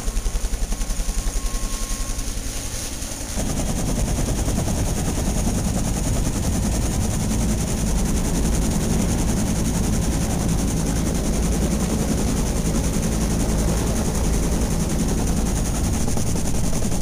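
Bell UH-1 Huey helicopter passing overhead, its two-bladed main rotor making a rapid, rhythmic blade-slap pulse. About three seconds in, this gives way abruptly to a louder, steady rumble of the helicopter's rotor and turbine close by.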